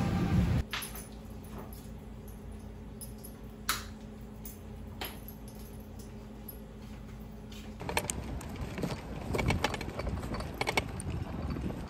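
Handling noise in a quiet room. A louder sound cuts off just after the start, then a low steady hum with a couple of single clicks; from about eight seconds in, a run of small clicks, rattles and rustles as small objects are handled.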